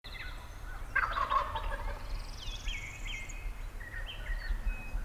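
Wild turkey tom gobbling once, a rapid rattling call about a second in.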